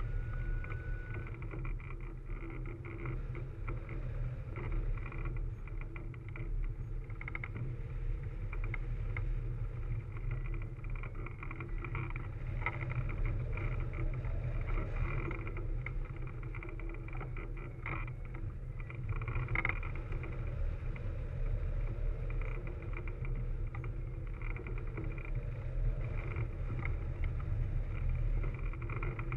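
Wind rushing over a hang glider's wing-mounted camera microphone in flight: a steady low rumble.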